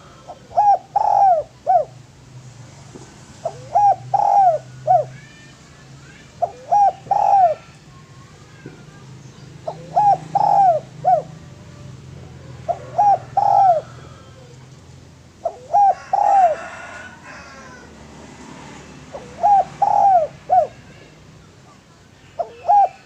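Spotted dove (tekukur, derkuku) cooing its territorial song over and over, one phrase about every three seconds. Each phrase is a run of three or four coos, the last one short and set apart.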